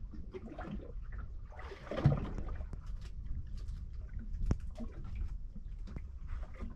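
Faint sea ambience: small waves lapping by the boat over a low rumble, with scattered soft clicks and one louder knock about two seconds in.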